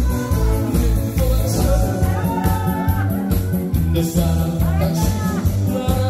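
Korean trot song played loud through a stage PA: a backing track with a steady thumping beat, and a man's voice singing over it into a handheld microphone.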